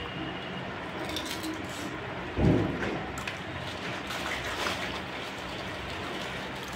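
Crinkling and rustling of a thin clear plastic bag being handled, a steady crackly rustle with a few sharper crackles, and one dull thump about two and a half seconds in.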